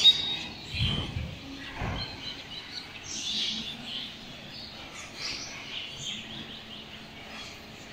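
A large flock of small birds roosting in steel roof trusses, chirping and twittering in many short overlapping high calls. A couple of dull low thumps sound in the first two seconds.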